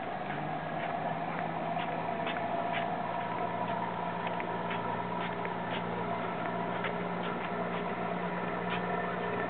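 Footsteps on a concrete pier, about two a second, over a steady low engine hum that comes in just after the start.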